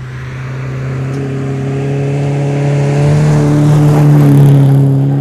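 Car engine running hard at fairly steady high revs as the car drives on a snowy ice track. It grows steadily louder, is loudest about four seconds in, then eases off slightly.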